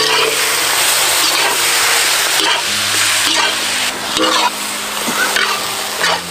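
Freshly added raw chicken pieces and onions sizzling in hot oil in a large black wok, stirred with a flat metal spatula, with a few scrapes of the spatula in the second half.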